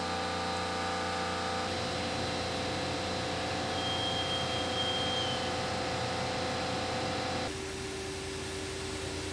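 Portable surface-roughness profilometer's drive unit whining steadily as it draws its stylus across a milled aluminium face to take a roughness reading. The whine shifts pitch about a second and a half in and changes again near the end.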